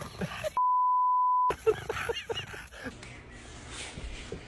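Censor bleep: a single steady 1 kHz beep lasting about a second. It starts about half a second in, and all other sound is cut out beneath it.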